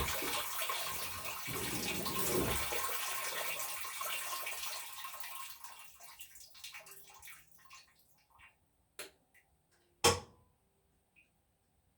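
GE top-load washing machine (model GTW460ASJ0WW) with a steady rush of water that fades away over about six seconds, followed by a few scattered clicks and one loud click about ten seconds in. The machine is stuck after its wash cycle and fails to drain.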